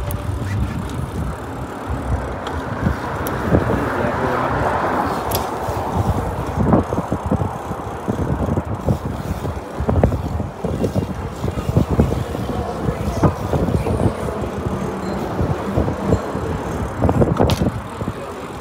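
Mountain bike ridden over city pavement: a steady rush of wind and rolling noise on the handlebar-held microphone, with frequent knocks and rattles as the bike jolts over bumps and cracks.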